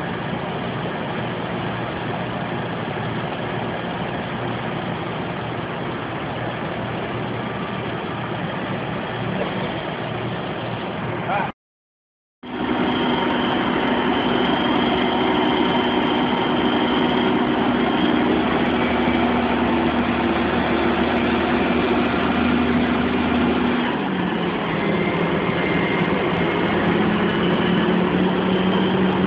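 Crane engine running steadily while hoisting a rooftop air-conditioning unit. The sound cuts out for about a second near the middle, then comes back louder, with the engine's pitch shifting a little about two-thirds of the way through.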